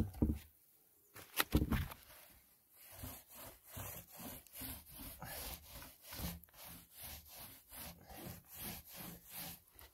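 Rhythmic scrubbing strokes, about two a second, as primer is worked over the roof surface to lift the dust off it. A brief knock comes about a second and a half in.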